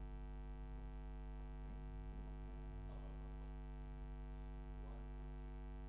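Faint, steady electrical hum with many evenly spaced overtones, with a couple of soft faint noises partway through.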